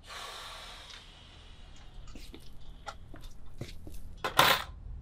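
A man's long sigh, fading over about a second, followed by light clicks and handling noises of an object in his hands, with a short louder noise near the end.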